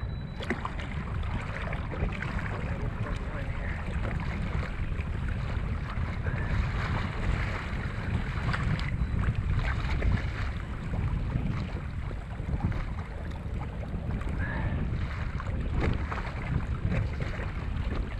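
Wind buffeting the microphone in a heavy, gusting rumble, with small waves lapping against a kayak's hull and a few light clicks and knocks.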